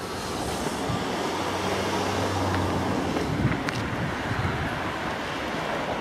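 Rumble of a passing vehicle with a low hum, swelling to its loudest midway and then easing off.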